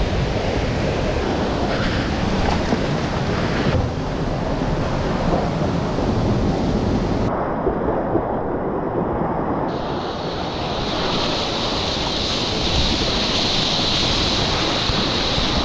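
Rushing, churning whitewater of a fast river standing wave heard up close, with wind buffeting the microphone. The sound is steady and loud, and its character shifts abruptly a few times.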